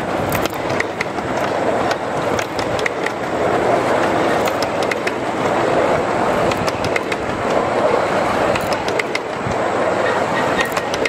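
Miniature ride-on railway train rolling past close by: a steady rumble of small steel wheels on the track, with frequent irregular clicks from wheels crossing rail joints.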